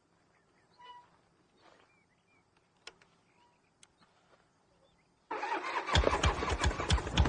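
A custom-built motorcycle's engine fires up suddenly about five seconds in and runs loud with rapid, uneven exhaust pulses. Before that there is only quiet with a few faint chirps.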